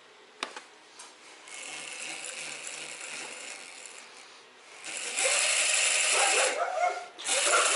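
Electric drive motor and gearbox of a remote-control lawn mower, run by its speed controller with the wheel freewheeling and unloaded, giving a gear whir. It starts softly, gets much louder about five seconds in as the throttle is opened, drops out briefly and picks up again near the end.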